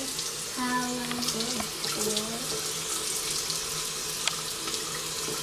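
Bathroom sink tap running steadily, with water splashed on the face during face washing.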